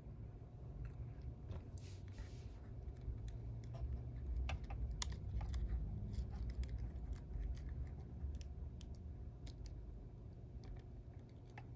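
Scattered small clicks and taps of fingers handling the tiny parts of an action camera during reassembly, with a low handling rumble that grows louder mid-way.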